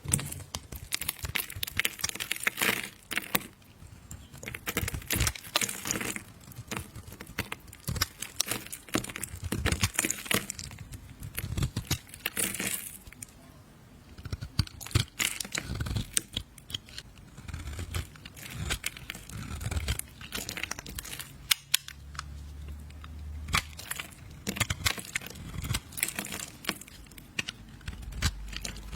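A knife cutting and carving soap: continual scraping and crackling as the blade shaves and breaks through it, with many small, sharp, irregular clicks.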